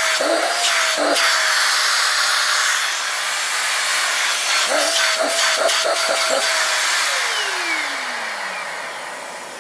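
A second vacuum cleaner running, sucking dust out of a clogged stick-vacuum filter, with several short knocks and rattles. About seven seconds in, its motor is switched off and the whine falls steadily as it spins down.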